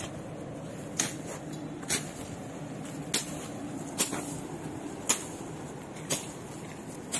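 Footsteps pushing through undergrowth and fallen branches, a sharp crunch about once a second, over a steady low rumble.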